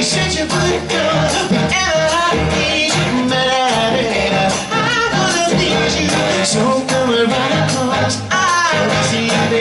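Live band music with male voices singing, steady and loud throughout.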